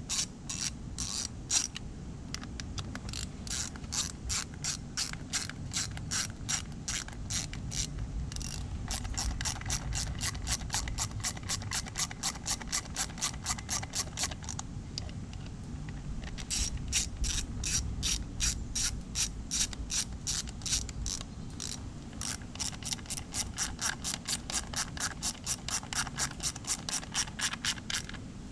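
Ratchet wrench clicking in long runs of rapid, even clicks, with a few short pauses, as the bolts of the rebuilt outboard fuel lift pump are run in and snugged down.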